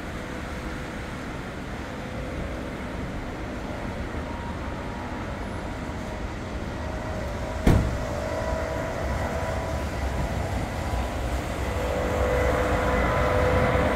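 Rolls-Royce Trent 7000 turbofans of an Airbus A330-941 at takeoff power during its takeoff roll: a steady jet roar with a faint whine, growing louder as the airliner accelerates toward the microphone. A single sharp knock about halfway through.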